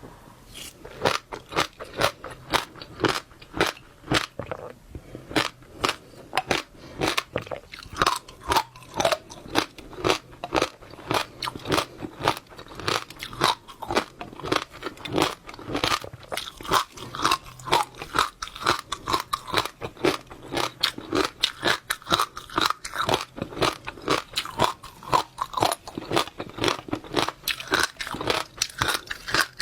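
Close-miked chewing of wet passionfruit seeds: an unbroken, irregular run of crunches and pops, several a second.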